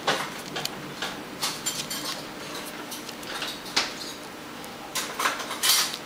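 Scattered light clinks and scrapes, about seven in all, with a slightly longer scrape near the end, as a paper-covered twist tie is wound around a pencil and the hands brush the aluminium pop-tab chain mail beneath.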